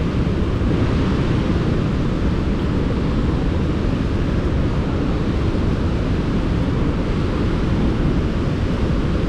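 Burgess Falls waterfall running at high flow: a steady, loud roar of falling water, heaviest in the low end, with spray and wind buffeting the microphone.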